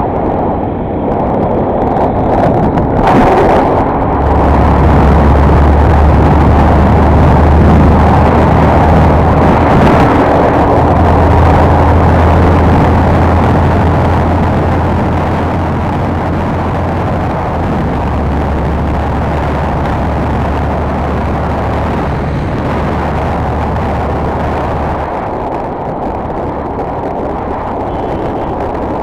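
Royal Enfield Continental GT 535's single-cylinder engine running hard at expressway speed, under a heavy rush of wind over the microphone. The low rumble eases a little about two-thirds of the way through.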